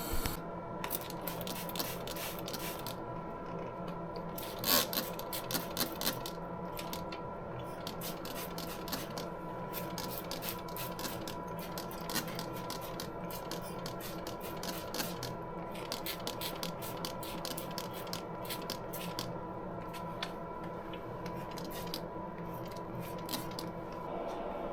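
Irregular scraping, rubbing and clicking of something being handled, over a steady machine hum with a couple of held tones.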